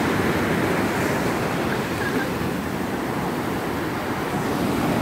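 Sea surf breaking and washing up over the sand at the water's edge: a steady rush of waves.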